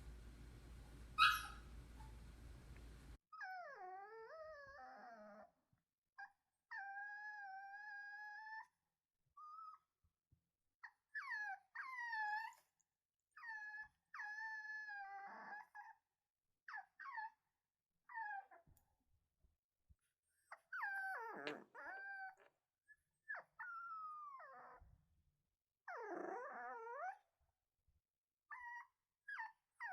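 Puppies crying: high-pitched whines and drawn-out, wavering cries, some held for a second or two, with short silences between. A single sharp yelp about a second in, over a steady hiss.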